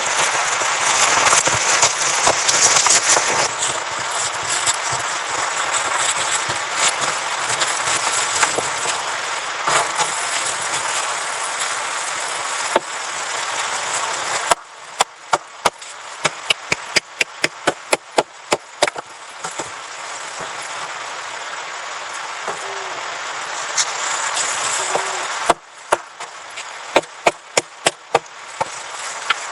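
A steady rushing noise, then, after an abrupt change about halfway through, quieter background with sharp knocks in irregular runs of several a second, one run in the middle and another near the end.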